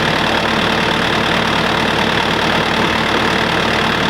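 Concrete mixer's engine running steadily at an even, unchanging speed.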